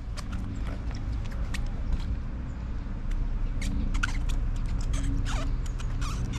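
Steady low background rumble with scattered sharp clicks and small creaks throughout.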